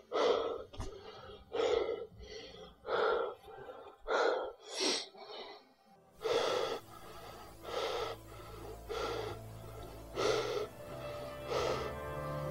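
A man breathing hard in loud, regular gasps, about one a second. Music comes in about halfway through, under the breaths.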